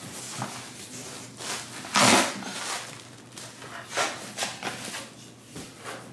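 A cardboard shipping box is cut open with scissors and its flaps are pulled back. The cardboard scrapes and rustles in short bursts, the loudest about two seconds in, then several shorter ones.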